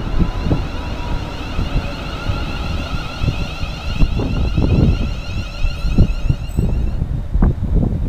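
London Midland Class 350 Desiro electric multiple unit moving off, a set of faint rising electric whines sounding over the rumble of the train until about seven seconds in. Wind buffets the microphone throughout.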